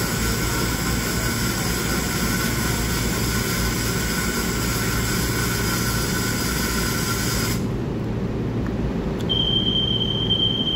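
Steady hum and hiss with fixed whining tones from a standing EMU3000 electric multiple unit's on-board equipment at an underground platform. About three-quarters of the way through the hiss cuts off abruptly, and a steady high beep follows near the end, the door-closing warning before departure.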